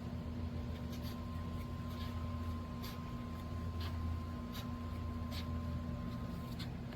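Small electric motor running with a steady hum, with faint sharp ticks about once a second; it changes abruptly at the very end.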